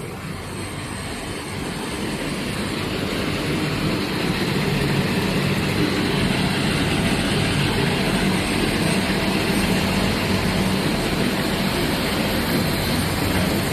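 Cable braiding machines running in a factory hall: a loud, steady mechanical noise that grows louder over the first few seconds and then holds level.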